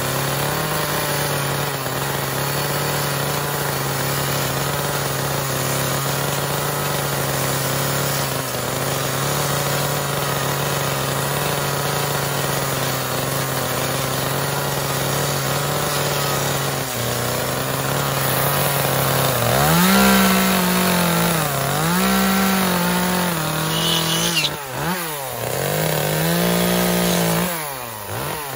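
Chainsaw carving wood. The engine runs at a steady high speed for most of it; from about two-thirds in, its pitch dips and rises again and again as the chain bites into the wood.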